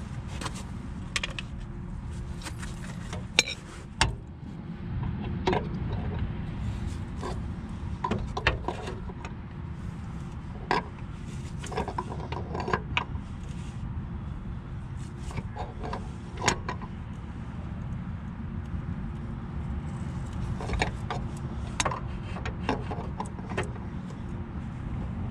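Scattered metal clicks and clinks of an adjustable wrench being fitted and turned on a turbo oil-return line fitting in the oil pan, over a steady low rumble.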